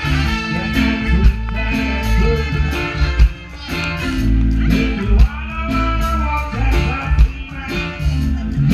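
Live reggae band playing: electric guitar and drum kit over a steady beat, with a man singing into a microphone.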